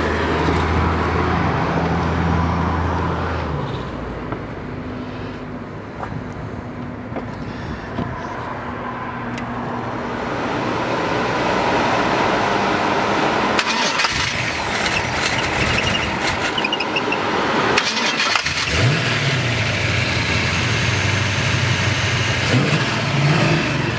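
Carbureted 383 stroker small-block Chevy V8 with headers and a stainless exhaust, just fired up and running at a lumpy, uneven idle. The revs rise briefly near the end.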